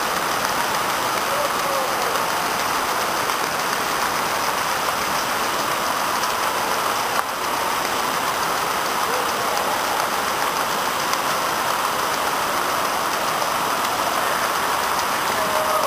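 Water spraying and pouring down steadily from a water-play structure onto the wet floor, a constant even rushing hiss.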